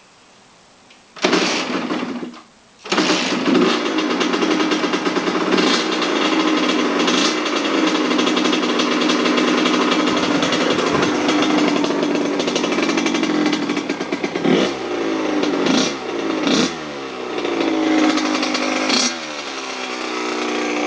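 Kawasaki KX100 two-stroke dirt bike engine, with a freshly rebuilt top end, being started: it fires briefly about a second in, cuts out, then catches a couple of seconds later and keeps running. It is blipped several times, the pitch falling back to idle after each rev.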